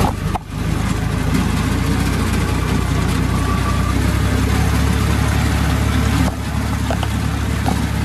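Diesel tractor engine running steadily at close range while driving a front-mounted reaper binder through wheat. The sound eases a little about six seconds in.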